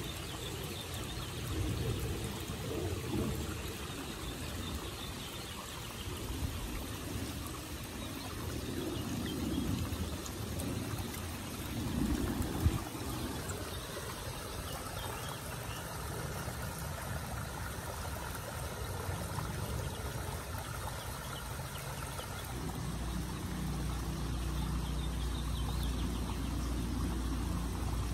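Released water running and trickling across gravel and grass, with a low rumble underneath that becomes steadier near the end. One sharp knock sounds about halfway through.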